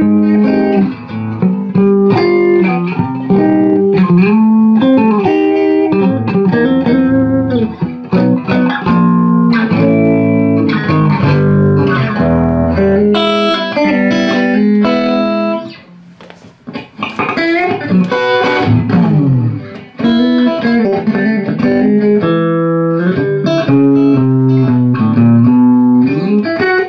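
Telecaster-style electric guitar played through a small tube amplifier head: picked single-note lines and chords, with string bends, and a brief drop in playing about two-thirds of the way through.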